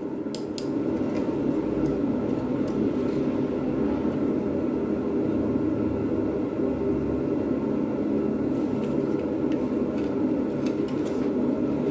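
A steady mechanical hum and whir, with a few light clicks and taps near the start and near the end.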